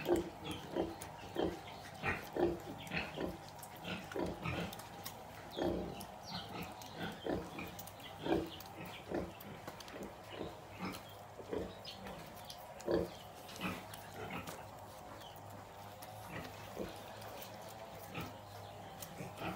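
Nursing sow grunting in a steady rhythm of about two short grunts a second while her piglets suckle, the grunts thinning out in the last few seconds; such rhythmic nursing grunts call the litter to the teats around milk let-down. Faint high squeaks sound over them.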